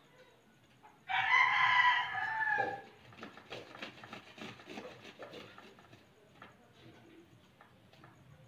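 A rooster crows once, about a second in, in a call lasting nearly two seconds that drops at the end. After it comes a run of quick scraping strokes as a carrot is rubbed on a metal hand grater, fading out toward the end.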